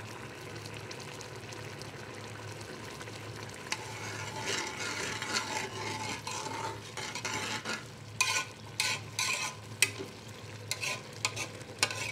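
Metal spoon stirring rice and water in a metal pot over a high gas flame, the liquid cooking in the pot. The stirring picks up about four seconds in, and from about eight seconds in the spoon clicks and scrapes against the pot several times. A steady low hum runs underneath.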